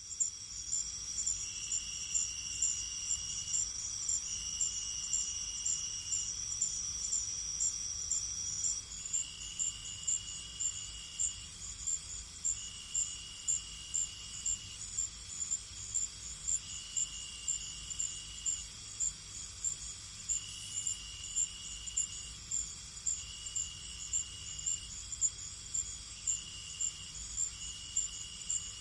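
Crickets chirping in a night chorus of several overlapping calls: a high chirp repeating steadily, a continuous high trill that stops about nine seconds in, and lower trills of about two seconds that come back every few seconds.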